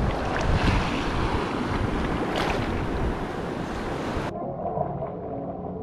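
Shallow surf washing over sand around the microphone, with wind buffeting it. A little over four seconds in, the sound cuts abruptly to a muffled underwater sound.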